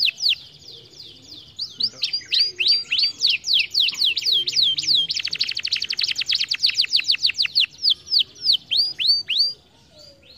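Domestic canary singing: a run of quick, repeated falling notes that speeds into a fast rolling trill about five seconds in, then slows to spaced notes and stops shortly before the end.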